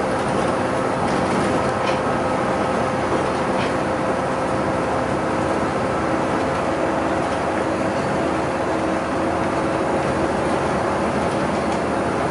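City bus cruising steadily at highway speed, heard from inside the cabin: engine and road noise with a steady hum underneath.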